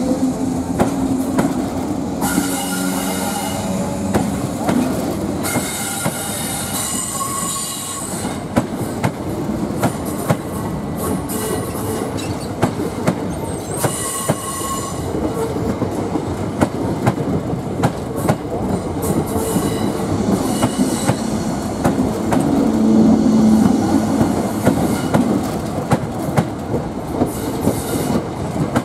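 A train running past on the rails: a long run of wheel clicks over the rail joints, with short spells of high-pitched wheel squeal about two, six and fourteen seconds in.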